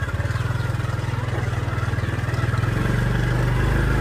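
A motor vehicle's engine running with a steady low pulse; about two and a half seconds in, its note changes and it grows louder.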